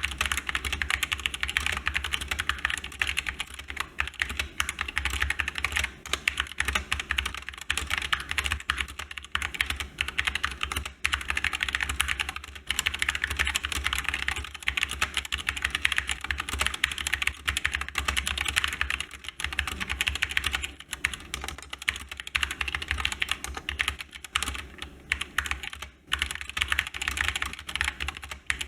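Continuous fast typing on a GK61 mechanical keyboard with Gateron brown optical switches: a rapid clatter of key presses, with a few short pauses.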